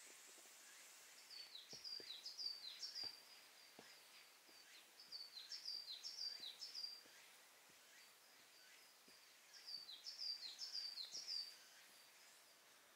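A songbird singing three short phrases of quick, repeated high chirps, each note dropping in pitch, with pauses of a second or two between phrases.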